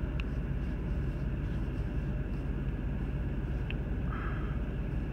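Steady low hum of a truck idling, heard from inside the cab. Faint ticks and a brief rustle of paracord being pulled through a knot come about four seconds in.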